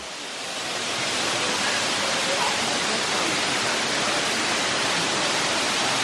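Steady rushing hiss of a waterfall pouring into a plunge pool, swelling over the first second and then holding even.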